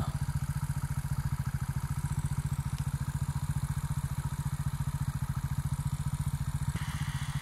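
Beta Alp 200 motorcycle's single-cylinder four-stroke engine idling steadily, with an even, fast thumping beat.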